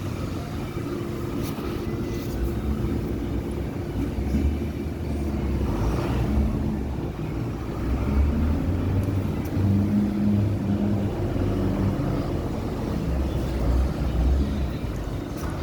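Massey Ferguson 7180 tractor's diesel engine running, a low rumble that swells and eases in loudness.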